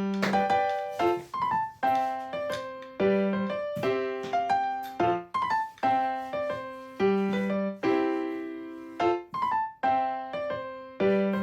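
Background music: a piano or electric-piano tune of plucky, quickly decaying notes in a repeating pattern.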